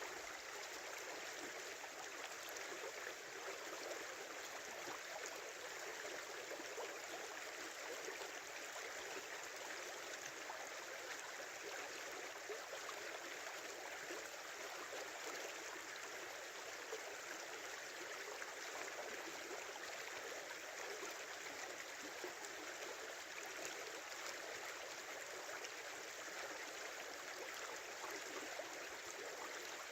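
Small river flowing, a steady babble of running water with no breaks or changes.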